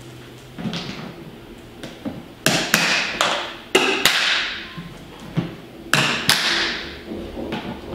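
Plastic lid pressed onto a clear plastic storage tub and its clip latches snapped shut: a soft thud followed by a series of sharp plastic clicks and knocks, several in quick succession.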